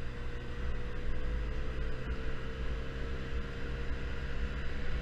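A Yamaha Zuma 50cc scooter's small engine running steadily at cruising speed, heard over heavy wind rumble on the microphone.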